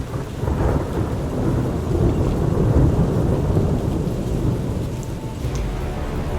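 Low rumble of thunder with rain, swelling to a peak near the middle and slowly easing off.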